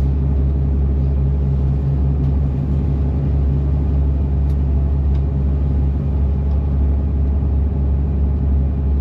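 Engine of a jet-drive aluminium gillnetter running steadily under way, a loud, even low drone.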